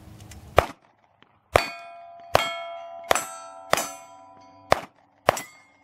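Pistol shots fired at steel target plates: seven shots about a second apart, four of them followed by the ringing clang of a hit steel plate.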